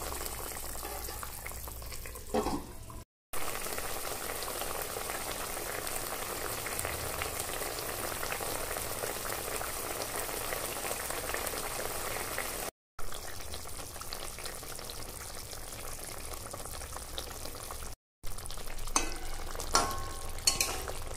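Fish curry in a thick mustard-and-poppy-seed gravy bubbling and sizzling in a wide pan, a steady hiss broken by three brief dropouts. Near the end a metal spatula scrapes and taps in the pan a few times.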